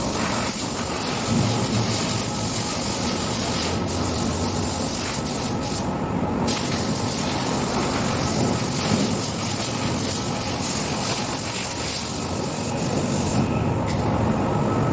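High-pressure spray hissing while cleaning a large milling machine, over a steady low machine hum. The spray cuts out briefly about six seconds in and again near the end.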